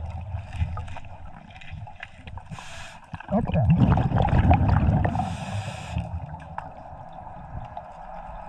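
Underwater scuba sounds: a diver's regulator exhaling bubbles twice, about three seconds apart. Between the two breaths comes a louder low rumble with crackling and clicks as a gloved hand digs through silt and rocks on the riverbed.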